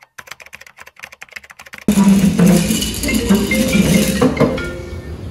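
Fast keyboard typing clicks for about two seconds, then a sudden switch to louder music with a melody of short, mallet-like notes.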